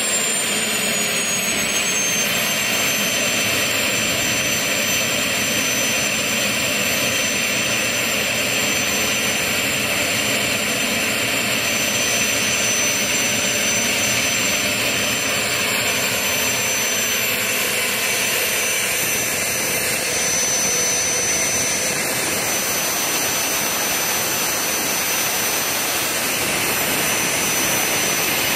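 Small gas turbine engine running: a loud, steady rush with a high whistle that drops in pitch over the first three seconds or so, then holds steady.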